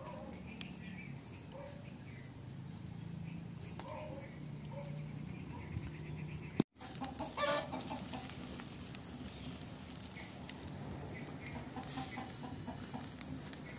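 Chickens clucking now and then in short calls over a steady low background hum.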